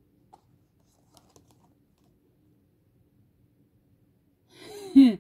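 A few faint light clicks of a cardboard product card with a plastic cable organiser being handled in the hands. Near the end, a woman's short voiced exclamation falling in pitch.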